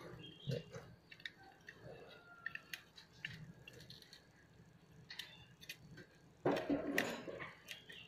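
Faint, scattered light ticks and clicks of thin wire being wrapped and pulled tight against a bundle of steel umbrella ribs, with a brief louder rustle near the end.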